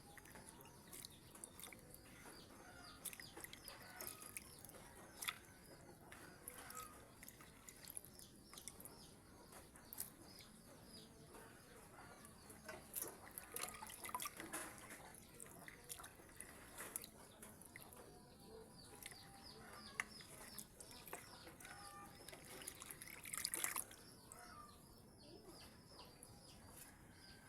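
Near silence with scattered faint clicks and taps, and faint bird chirps in the background.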